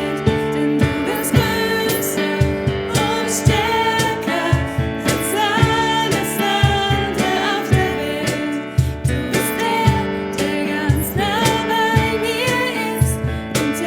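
Christian pop song: singing over a band with a steady beat.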